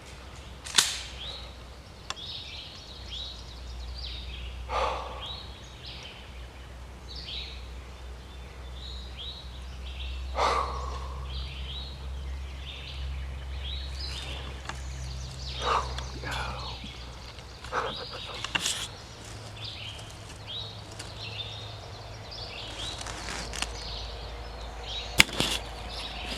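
Small birds chirping and singing in short repeated phrases, with a few sharp clicks, one about a second in and one near the end the loudest, over a steady low rumble.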